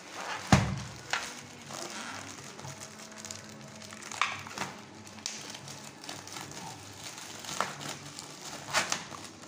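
Plastic courier mailer bag crinkling and rustling as it is handled, twisted and torn open by hand, with a thump about half a second in.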